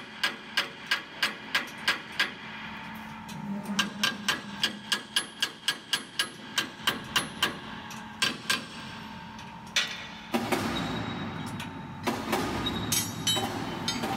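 Hammer tapping on metal during machine assembly, quick even taps about three a second in two bouts with a short pause between, then a couple of last taps. About ten seconds in, a louder steady mechanical noise sets in.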